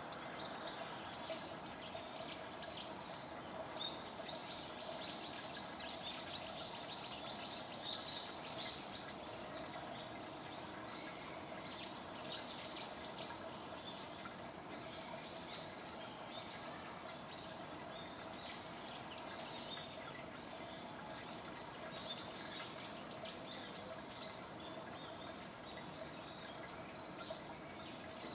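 Small birds chirping and twittering, a rapid chatter in the first several seconds and then looping warbled phrases, over a steady faint hum.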